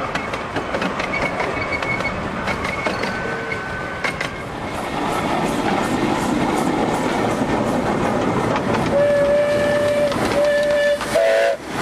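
Miniature steam train running on the track: a steady rumble and clatter of the wheels and coaches. Near the end the locomotive's steam whistle blows three times: one long blast, a shorter one, then a brief two-note toot.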